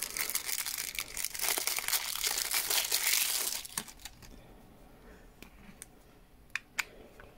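Thin clear plastic packaging bag crinkling as a rubber radio antenna is pulled out of it, for about three and a half seconds. Then it goes quieter, with two short clicks near the end as the antenna is brought to the handheld radio's connector.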